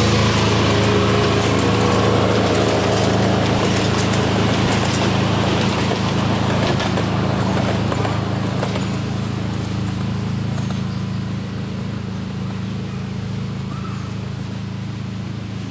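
Engine of a miniature railway's SNCF-outline diesel locomotive running steadily as it hauls a passenger train away, its hum fading gradually, with light clicking from the wheels on the track midway.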